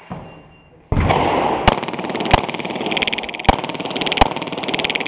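Pistol shots fired in a string on a USPSA stage: about six sharp shots at uneven spacing, the first about a second in, with a steady rushing noise between them.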